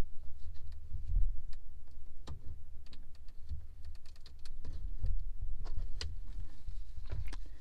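Scattered light plastic clicks and small rattles from the Mercedes W203 centre dashboard air vent as a small screwdriver pries at its top clip and the vent is pulled down, over dull low bumps of hands handling the dash.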